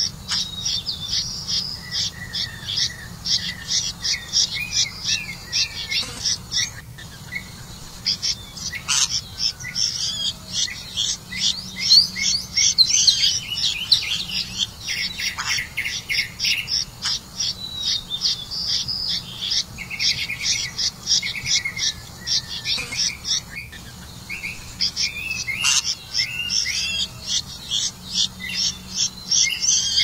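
Red-vented bulbul nestlings begging for food: rapid, high-pitched chirping repeated almost without pause, with a few short breaks.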